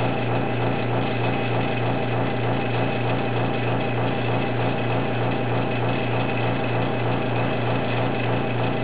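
Vacuum pump running steadily, a low hum with an even, fast pulsing, holding vacuum on a resin-infusion bag while the resin is drawn in.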